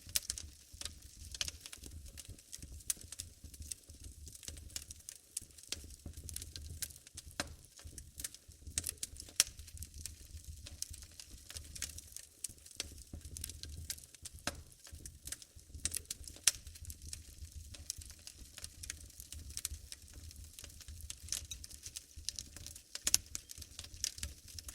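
Wood fire burning in a fireplace, crackling with irregular sharp pops and snaps over a low rumble of the flames.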